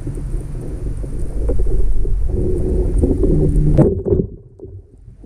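Muffled low rumble of water moving past a camera in a waterproof housing, heard underwater. About two and a half seconds in a low pitched hum joins it, and after a knock near four seconds the noise falls much quieter.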